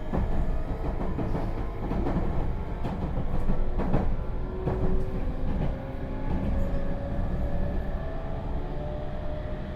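A Meitetsu 3700 series train's Toyo Denki GTO VVVF inverter whining, heard from inside the car, with tones that climb slowly in pitch from about halfway. Under it run the rumble of the running gear and the clacks of wheels over rail joints. The uploader calls this inverter noise abnormally loud for inside a car.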